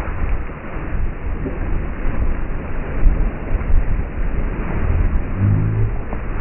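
Strong wind buffeting the microphone over the rush of water past a sailboat's hull running fast in high wind. A short, low pitched hum sounds about five seconds in.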